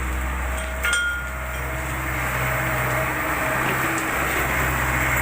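Diesel engine of a JCB backhoe loader running steadily, with a single metallic clank and clink about a second in.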